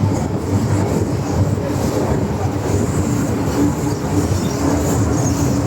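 Steady running noise inside an MTR M-train car between stations: a continuous rumble of steel wheels on rail, with a low steady hum beneath it.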